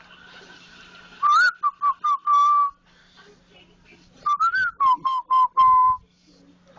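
Whistling in two short phrases, each a rising note followed by three or four short, evenly repeated notes.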